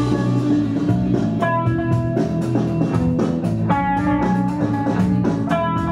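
Pop-rock band music led by electric guitar, with a steady beat.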